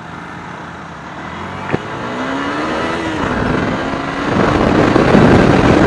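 Wind rushing over a motorcycle rider's external microphone, fitted with a furry dead-cat windscreen that still lets wind noise through, with the motorcycle engine note faintly underneath. The rush grows steadily louder as speed builds, with a single sharp click about two seconds in.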